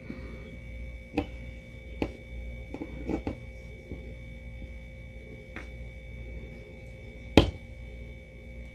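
Handling noise from weaving yarn ends into a crochet piece with a darning needle. There are a few scattered light clicks and taps, the sharpest near the end, over a steady low hum.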